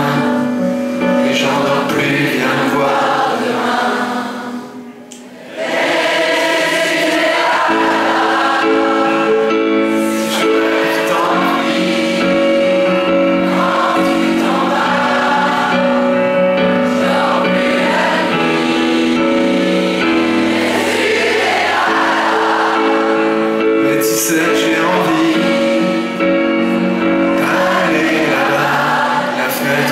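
Concert audience singing along in chorus to piano accompaniment, the music dipping briefly about four to five seconds in before the singing resumes.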